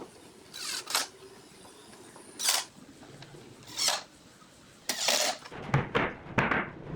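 Short scraping strokes, at first spaced a second or more apart, then coming quicker over the last two seconds.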